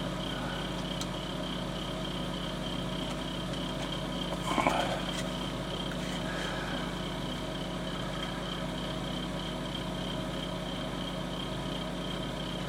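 Steady background hum, with a brief soft sound about four and a half seconds in.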